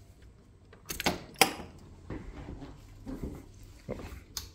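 Multi-pin cable connector being unplugged from a clock's metal back panel: a few sharp clicks and rattles of the plug, the sharpest about one and a half seconds in, followed by lighter handling knocks.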